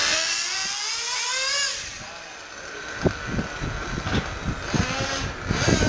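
1/10-scale electric RC car with a brushless motor whining past. The pitch climbs, then drops as the car goes by in the first two seconds, and another whine passes near the end.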